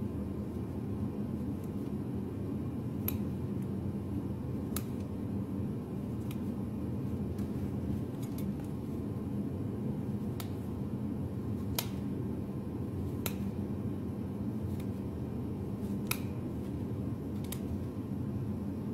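Hoof nippers snapping through an overgrown horse's hoof wall: sharp crisp snips roughly every second and a half, about eight in all, over a steady low hum.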